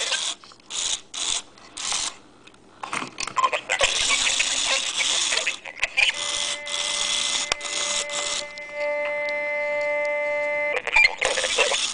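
Circuit-bent Furby's speaker putting out glitchy electronic noise in stuttering crackling bursts, then dense static, with its bare circuit board handled by hand. Near the end it settles into a steady buzzing tone with many overtones for about two seconds, then cuts off suddenly and the noise resumes.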